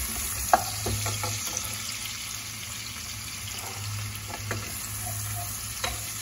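Chopped garlic and shallots sizzling steadily in hot oil, with a wooden spatula knocking and scraping against the pot as they are stirred. The sharpest knock comes about half a second in.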